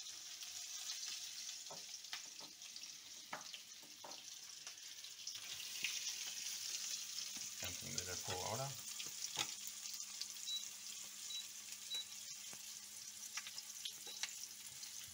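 Flour-dredged chicken pieces frying in hot oil, a steady sizzle with scattered crackles and pops.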